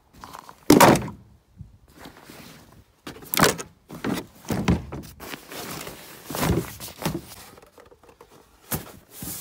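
A series of thumps and knocks with some scraping in between as household items and junk are handled and set down. The loudest thump comes about a second in, and several more follow through the rest of the stretch.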